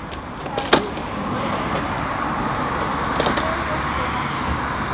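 Knocks on a wooden playground climbing frame as a child climbs it: one sharp knock about a second in and lighter knocks around three seconds, over steady background noise.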